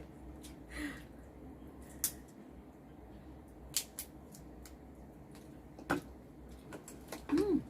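Scattered sharp clicks and taps of shellfish shells and utensils handled while eating seafood, with a short voiced 'hm' near the end.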